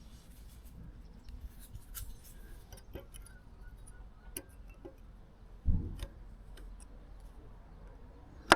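Scattered small metallic clicks and taps as the brake pad retaining pin is worked back into a motorcycle front brake caliper, with a dull knock a little past halfway and a sharp click at the very end.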